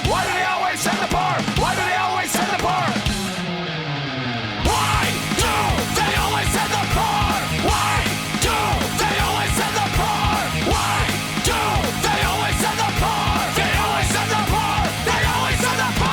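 Outro music: loud punk/hard rock with guitar, drums and yelled vocals, thinning briefly about four seconds in before the full band comes back in.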